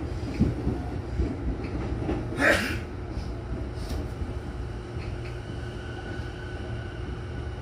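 Sotetsu commuter train pulling out of a station and gaining speed, heard from just behind the front cab: a steady low running rumble, with a short hiss about two and a half seconds in and a faint whine in the second half.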